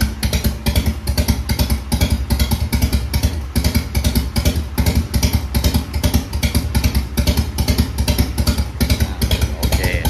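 Harley-Davidson FXR's V-twin engine idling with a steady, even beat, its exhaust pulses loud and low.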